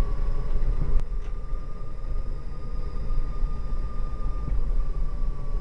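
Electric drive whine from the Ripperton Mira's brushless hub motors and controllers while driving, one steady high tone over low road rumble inside the cabin. The tone creeps up slightly in the first second and eases a little near the end, and there is a single click about a second in.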